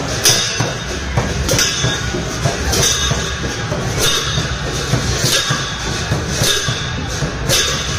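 Large brass hand cymbals clashing in a steady beat, seven crashes about one every second and a quarter, over a dense low din of a festival procession.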